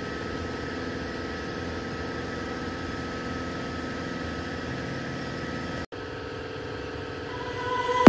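Steady mechanical hum of a running machine, with a few constant tones in it. It breaks off for an instant about six seconds in, then swells slightly near the end.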